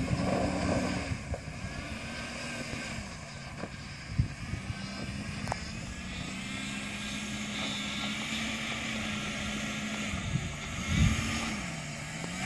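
A 1989 Jeep Cherokee XJ's engine running at low revs as it crawls over a rocky dirt trail, a steady drone that dips and rises in pitch a few times. A couple of dull thumps come through, the louder one near the end.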